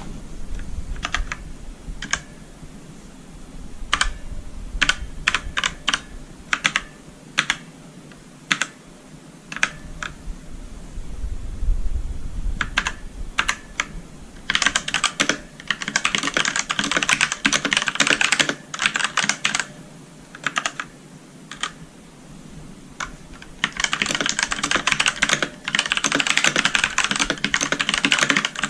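Mechanical keyboard with Outemu Black linear switches being typed on: single, spaced key presses at first, then two long runs of fast, continuous typing in the second half.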